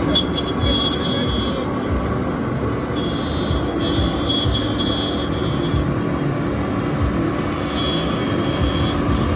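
Missilecnc CNC router spindle running as a small bit carves a wooden relief panel: a steady hum under dense machine noise, with a thin high tone that comes and goes three times.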